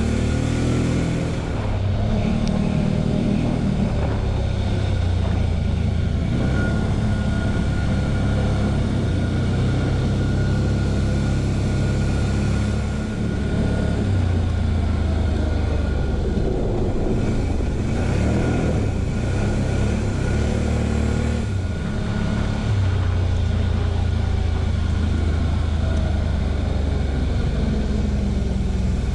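TGB Blade 1000 quad's V-twin engine running under way, its revs rising and falling as the throttle is worked, easing off briefly three times.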